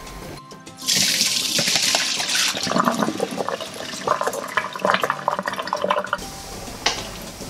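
Hot water and boiled flour dumplings poured from a pot into a stainless-steel mesh colander. A loud rush of draining water starts about a second in, followed by a run of soft knocks and clinks as the dumplings slide out and the pot meets the strainer. Quieter after about six seconds.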